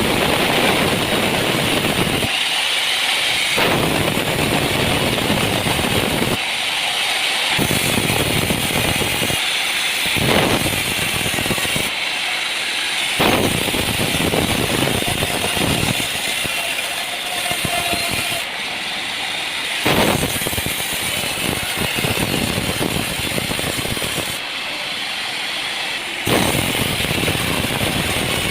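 Sawmill machinery running loudly, a dense rattling mechanical din that changes abruptly every few seconds.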